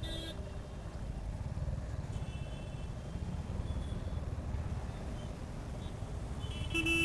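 Royal Enfield Hunter 350 motorcycle under way: its single-cylinder engine and the road noise make a steady low rumble. A vehicle horn honks briefly near the end.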